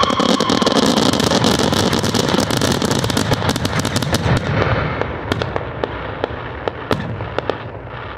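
Fireworks finale: a dense barrage of rapid crackling and bursts over a low rumble, which thins out after about four and a half seconds into scattered single pops and fades away.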